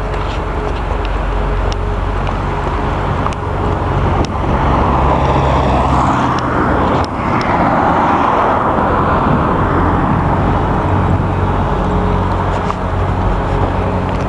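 Car engine running steadily with tyre and road noise, as heard from a moving car; the road noise swells through the middle as traffic passes.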